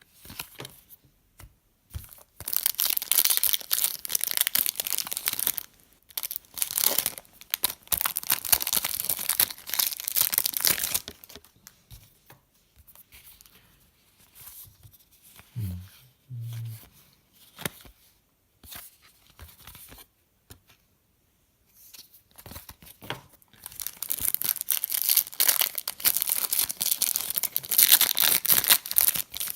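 Trading card pack wrappers being torn open and crinkled in long crackly bursts, one stretch early and another near the end, with a quieter spell between.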